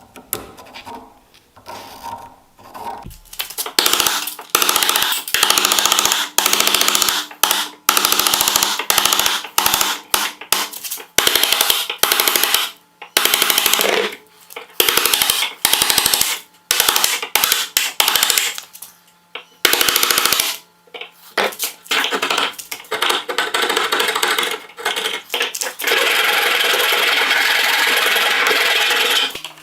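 An electric power tool working metal or wood, run in many short bursts of half a second to two seconds, then held on steadily for a few seconds near the end.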